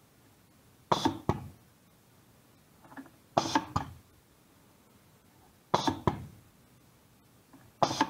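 Pneumatic training circuit cycling four times: a double-acting cylinder worked by a pilot-operated 5/2 valve and push-button 3/2 valves. Each cycle is a sharp clack followed by a second knock about a third of a second later, each with a short hiss of exhausting air, about every two and a half seconds.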